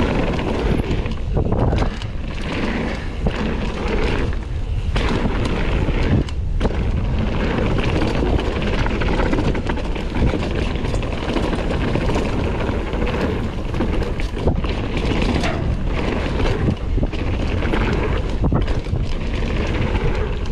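Wind rushing over the GoPro microphone and knobby tyres rumbling on a dirt trail as a full-suspension mountain bike rides downhill, with frequent clicks and rattles from the bike over bumps.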